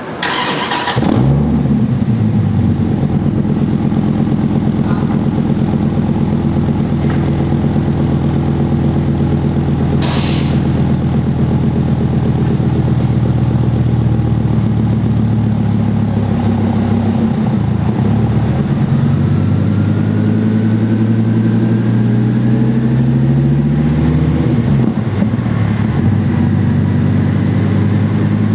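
2008 Dodge Viper SRT-10's 8.4-litre V10 running at low, fairly steady engine speed through a full Belanger exhaust (longtube headers, high-flow cats, catback) on a chassis dyno, its pitch drifting slightly up and down. A sharp click comes about ten seconds in, and a faint whine rises slowly in the second half.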